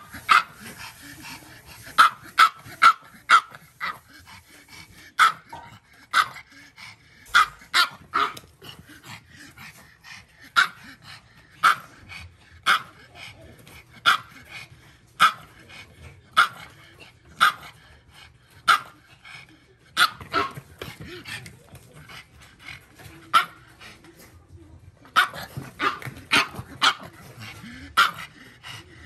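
Pug barking over and over in short, sharp barks, about one a second, with a brief pause about 24 seconds in: demand barking for its food before a meal.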